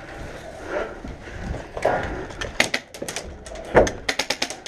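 A run of sharp clicks and knocks, coming quickly one after another in the second half, with one heavier thump about four seconds in.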